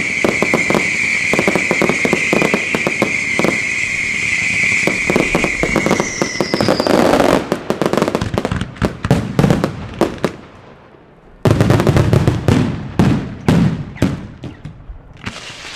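Daytime fireworks firing: a steady high whistle with crackling pops for about the first seven seconds, then a rapid run of bangs and crackles. A short lull is broken by a sudden loud burst about eleven seconds in, followed by more bangs that thin out near the end.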